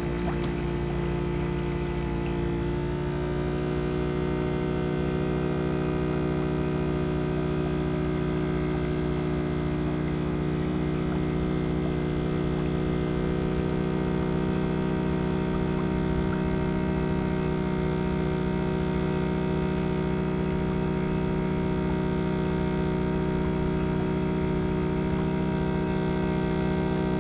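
Boat engine running steadily under way, with a deep rumble under a constant drone. It settles to an even pitch about two or three seconds in.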